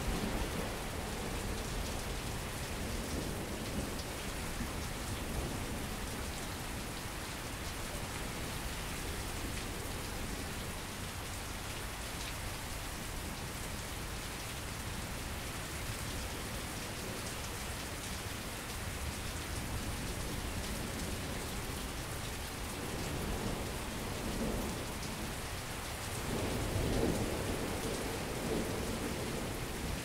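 Steady rain falling in a thunderstorm, with distant thunder rumbling low under it; the longest, loudest roll of thunder comes near the end.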